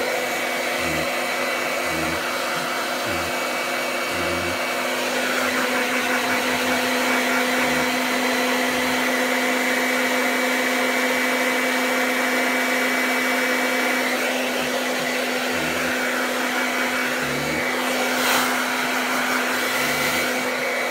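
Handheld hair dryer blowing steadily, its motor holding one even hum, with a brief bump near the end.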